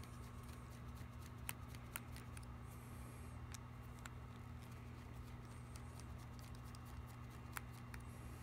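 Faint, scattered metallic clicks of a Phillips screwdriver turning out the two tiny screws that hold the transmission to a 20 mm retract actuator motor, over a low steady hum.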